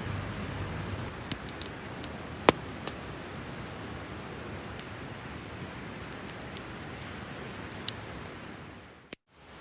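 Steady background hiss with a few small sharp clicks and rustles scattered through it, fading out near the end.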